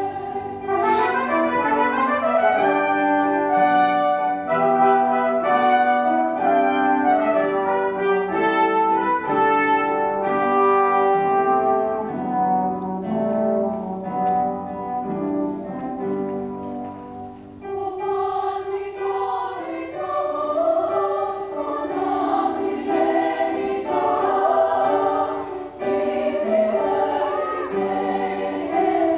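A choir singing with piano and instrumental accompaniment. The first half is a busy passage of quickly changing chords; after a brief dip about eighteen seconds in, the wavering voices of the choir come to the fore.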